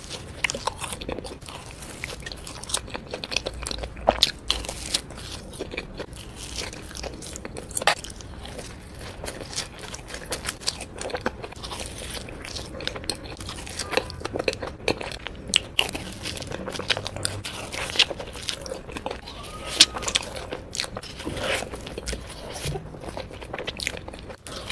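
Close-miked eating: a person biting into and chewing soft, cream-filled, sugar-dusted donuts, with many irregular small clicks of mouth and food throughout.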